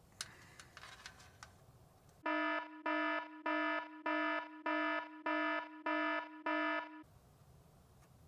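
Electronic alarm-buzzer beeping: nine short, identical beeps at a steady pitch, about two a second, starting about two seconds in and stopping about seven seconds in.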